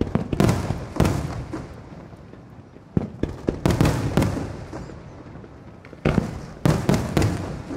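Fireworks display: aerial shells bursting in loud bangs that come in three clusters about three seconds apart, each bang trailing off in a rumbling echo.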